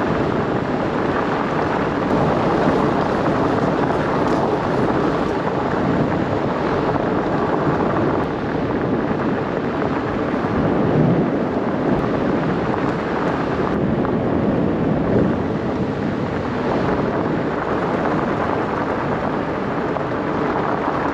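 Wind buffeting the microphone and the Himiway Cobra e-bike's fat 4.8-inch tyres rolling over a gravel road while riding, a steady loud noise with no break.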